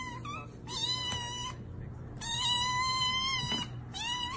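Tabby kittens mewing: a short mew, then three long, steady, high-pitched mews, each about a second long.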